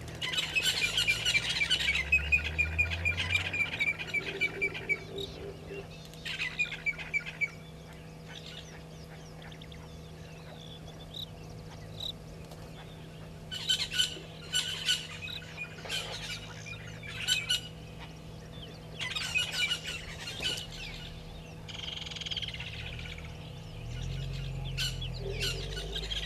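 Woodland kingfisher calling: a loud opening note running into a long trill that falls in pitch, and a shorter trill about six seconds in. Later come several bursts of short, sharp bird calls, over a faint steady low hum.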